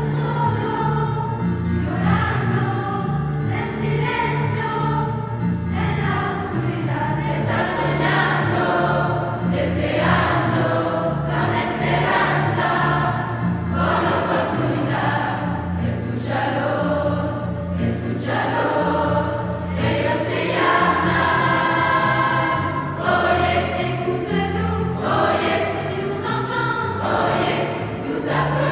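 Large mixed choir of teenage boys and girls singing together, phrase after phrase without a break.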